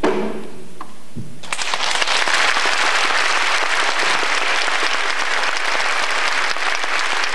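Audience applause breaking out about a second and a half in and continuing steadily, just after the song's last brief note and drum stroke die away.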